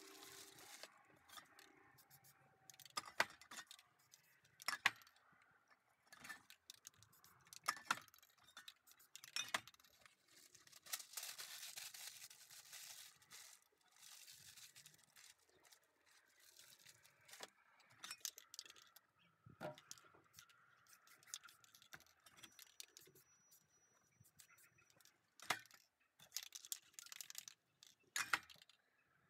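Aerosol spray paint can hissing in a spray lasting a few seconds, with scattered sharp clicks and knocks of paint cans and lids being picked up and set down.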